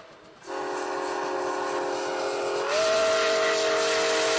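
A multi-chime train horn sounding one long, steady chord. About two and a half seconds in it gets louder and slightly higher.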